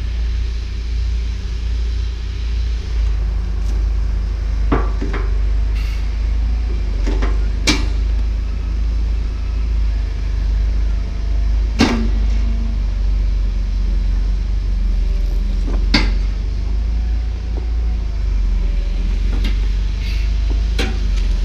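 Road-rail excavator's diesel engine running steadily at a low rumble, with sharp metal clanks now and then as the machine and its grab work on the track.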